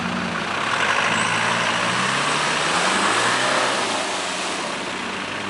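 Land Rover Discovery engine revving hard while its wheels spin in deep mud, with tyres flinging mud and water. The vehicle is stuck and being driven out under full power. The engine pitch climbs, then eases off about four seconds in.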